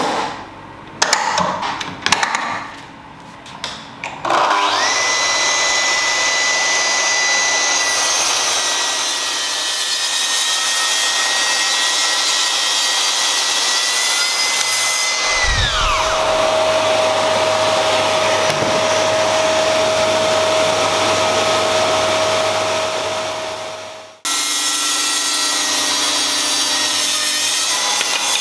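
A few clicks and knocks as the guide rail is set and clamped, then a Festool plunge-cut track saw starts and runs with a steady high whine as it cuts an oak board along its guide rail. About halfway the saw's pitch falls as it winds down, while a steadier, lower machine hum keeps going. After a sudden break the saw runs again and winds down near the end.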